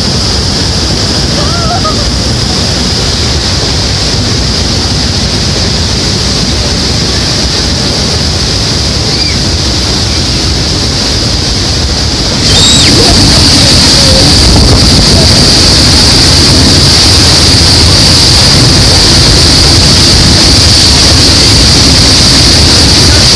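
Bridal Veil Falls pounding onto the deck just below, a steady, very loud rush of water with heavy spray and wind buffeting the microphone; it gets louder about halfway through.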